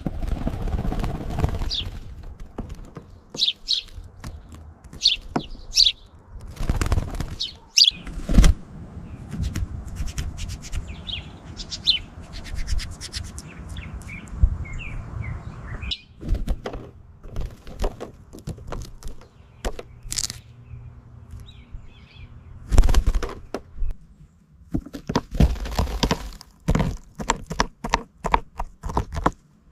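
A pet parrot chirping in short high notes while its beak bites and crunches into an apple, with repeated clicks, knocks and thunks from the chewing.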